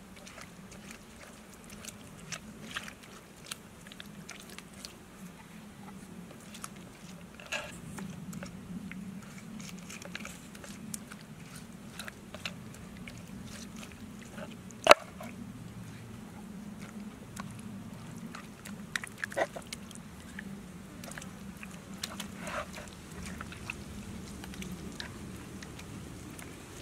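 Hands rubbing and squeezing a chili-and-garlic marinade into a raw pig leg on a wooden cutting board: wet squelching and slapping of skin on meat with scattered light taps, and one sharp knock on the board about halfway through.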